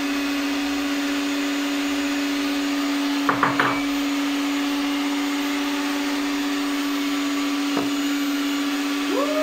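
Electric hand mixer motor running at one steady pitch, with a brief clatter about three seconds in and a single click near the end.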